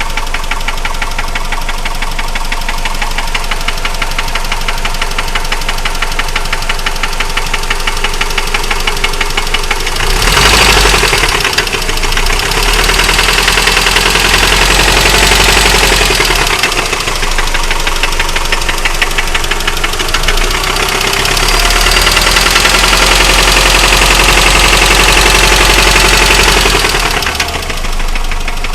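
2003 Mitsubishi Outlander's 2.4-litre four-cylinder engine knocking with a rapid, even knock. It idles for the first ten seconds, is revved twice with the knock carried through, and drops back to idle near the end. The owner takes the knock as needing an engine rebuild.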